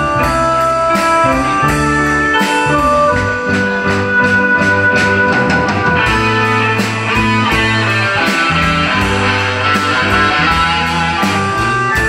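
Live band playing an instrumental passage of a song: electric guitar over keyboard and bass, with a steady drum beat.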